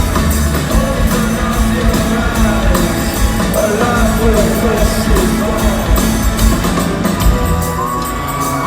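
Rock band playing live: a singer's voice over electric guitar, bass and drums, at a loud, even level.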